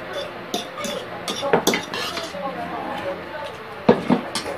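Metal spoons clinking and scraping against ceramic bowls while people eat, with a few sharp clinks, the loudest pair near the end.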